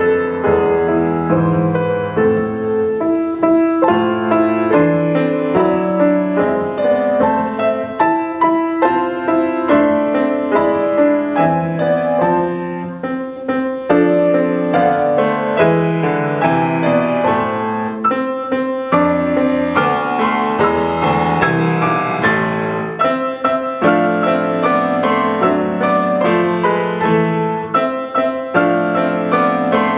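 Grand piano played four hands by two players: a steady flow of melody and chords.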